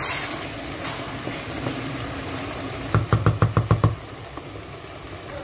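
Spinach stew cooking down in a pot as a wooden spoon stirs it, with a steady sizzle. About three seconds in there is a quick rattle of about eight low knocks, lasting just under a second.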